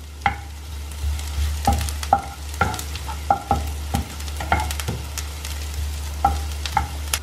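Wooden spatula stirring diced onion and green chilli in a non-stick frying pan, with irregular scrapes and taps against the pan over a gentle sizzle of the onions frying in olive oil. A steady low hum runs underneath.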